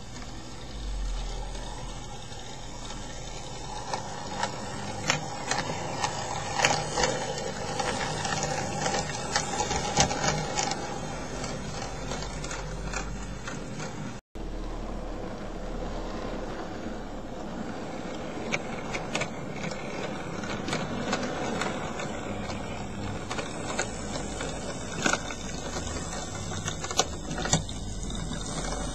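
OO gauge model steam tank locomotive and coaches running along the track: a steady motor whirr with irregular clicks as the wheels cross rail joints and points. The sound cuts out for a moment about halfway through, then the running carries on.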